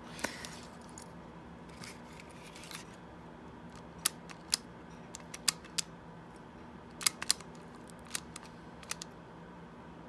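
Small sharp clicks and taps, about a dozen from a few seconds in, some in quick pairs, as the parts of a disassembled 2003 C5 Corvette ignition switch and its key cylinder are handled, over a faint steady hum.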